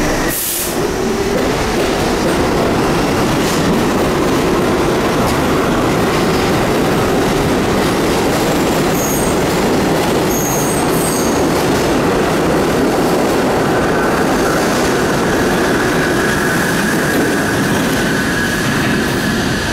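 R62A subway train pulling out of the station and running past on the rails, loud and steady, with wheel clatter and brief high wheel squeals about halfway through. As the last car pulls away, a steady high-pitched whine comes in.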